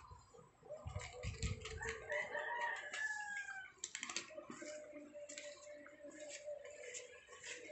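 A rooster crowing, one drawn-out call that falls in pitch at its end, over scattered clicking crunches of cats eating dry kibble from bowls.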